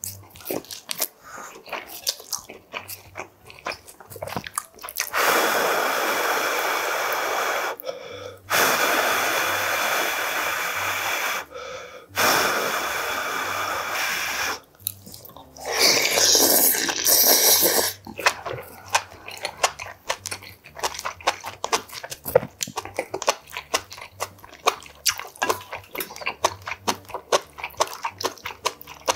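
Eating hot yukgaejang close to the microphone: wet chewing, then three long blows of about three seconds each to cool a chopstick-load of beef and noodles. A short loud slurp follows just past the middle, and then rapid wet chewing clicks.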